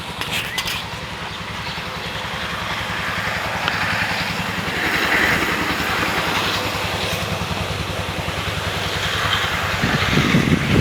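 Strong gusty wind buffeting the microphone with a fluttering low rumble, its rushing swelling about four to six seconds in and again near the end.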